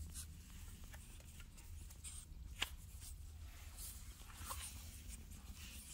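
Faint rustling and scratching of Shih Tzu puppies moving and pawing close to the phone, with one sharp tap about two and a half seconds in.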